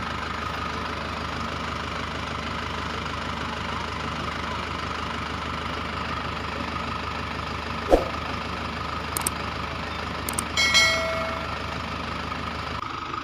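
Mini tractor engine running steadily. A single sharp knock comes about two-thirds of the way through, then a few light clicks and a brief high-pitched squeal.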